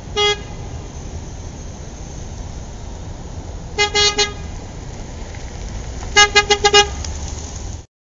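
Car horn honking in city traffic: one short toot, a quick triple toot midway, then a rapid string of about five toots near the end, over a steady low rumble of street traffic.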